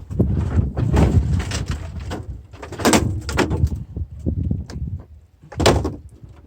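Irregular knocking, scraping and clattering of metal being handled, with two sharp bangs, about three seconds in and near the end.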